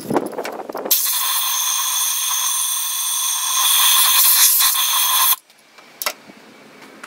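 Compressed-air blow gun blowing down a spark plug well: a loud, steady hiss with whistling tones starts about a second in and cuts off sharply near the end. The blast clears loose dirt from around the spark plug before it is removed.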